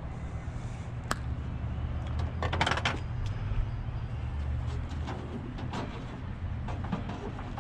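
Scrap being handled by hand: a sharp click about a second in, then a louder burst of rattling clatter a couple of seconds later, and scattered small knocks after it, over a steady low hum.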